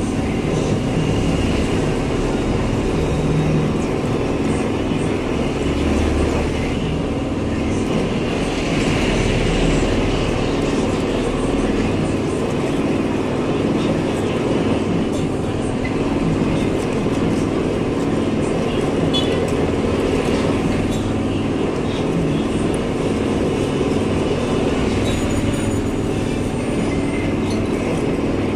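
Metal lathe running at a steady speed while its tool cuts a steel sliding-gate wheel part, chips curling off the cut. A continuous, even machine hum with a low drone underneath.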